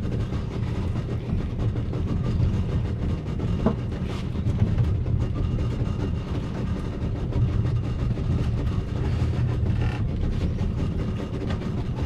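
Steady low rumble of a fishing boat's engine running, even and unbroken.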